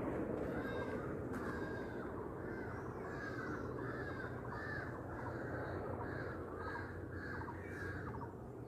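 A bird calling over and over, a string of short rising-and-falling calls about two a second.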